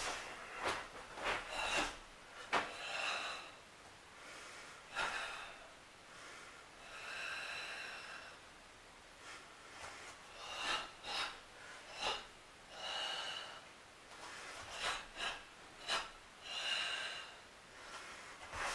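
A karateka's forceful, hissing breaths, each up to about a second long, timed to the techniques of a karate kata. Between them come several short, sharp snaps as the moves are struck.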